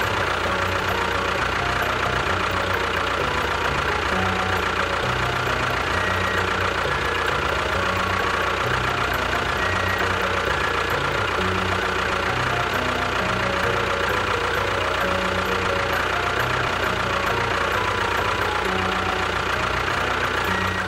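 A small engine running steadily at an even speed, with no change in pitch, with a light knocking in its sound.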